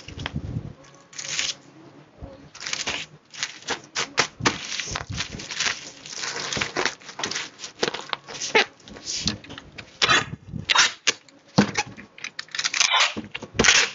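Plastic mailer bag crinkling and rustling in irregular bursts as it is folded and handled around a packed item.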